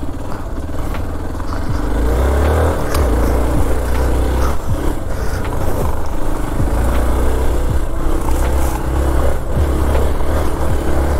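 Motorcycle engine running under load as the bike climbs an off-road track, a steady low rumble that gets louder about two seconds in, with scattered short clicks.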